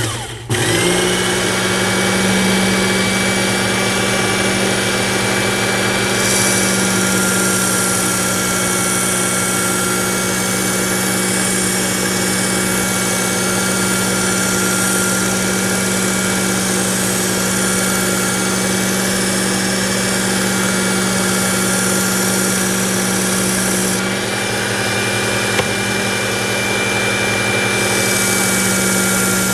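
Work Sharp electric belt knife sharpener running steadily on a 6000-grit belt, a motor hum with a thin high whine. A higher hiss joins from about six seconds in to a few seconds before the end, then returns near the end.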